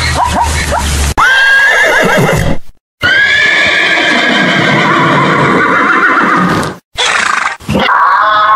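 Horse whinnying: a short whinny, then a long, wavering whinny lasting nearly four seconds. A small dog's rapid yips run through the first second.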